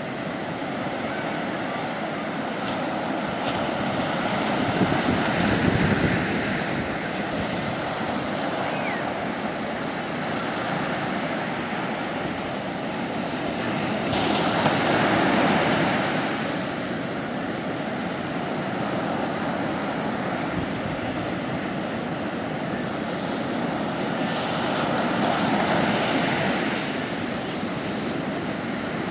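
Sea waves breaking and washing on a beach: a continuous rush of surf that swells three times, about every ten seconds.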